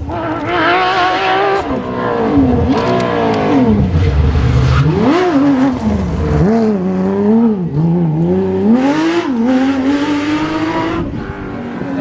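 Porsche 997 GT3 rally car's naturally aspirated flat-six, loud, with revs falling and rising again and again as it slides through a gravel corner. It settles into a steadier, higher note near the end.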